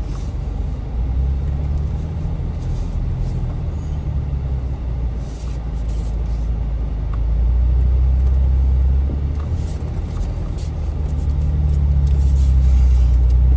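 Jeep engine rumbling at low revs while crawling off-road, swelling louder twice as it pulls harder, about seven seconds in and again near the end.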